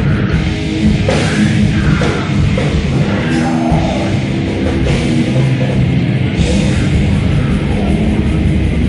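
Heavy metal band playing live: distorted electric guitars, bass and drum kit in a loud, dense, unbroken wall of sound.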